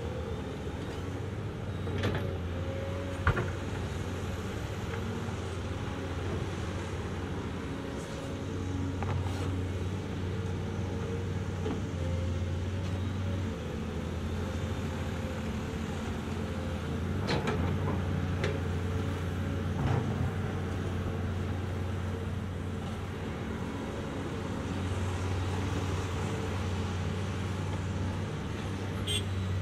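Diesel engines of two Caterpillar excavators, a Cat 336 and a Cat 345, working while they dig and load dump trucks: a steady low engine drone. A few sharp knocks stand out, from buckets and dumped dirt hitting the truck boxes.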